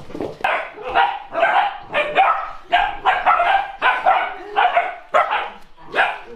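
Standard poodle puppies barking repeatedly, about two short barks a second.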